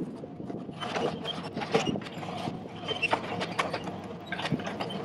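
Sany SY50U mini excavator working a brush pile: irregular cracking and snapping of branches and knocks of the bucket and thumb in the debris, over the machine's steady running.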